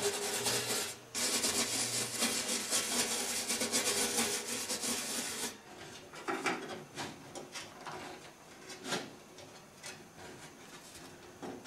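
A hand-held block scrubbed rapidly back and forth over an embossed copper sheet, a dense rasping noise. From about halfway on, tin snips trim the edge of the copper sheet with a series of separate crisp snips.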